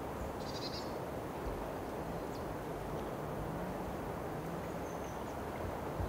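Steady low outdoor background noise, with a brief high chirp about half a second in and a few faint high ticks; no woodpecker call or drumming stands out.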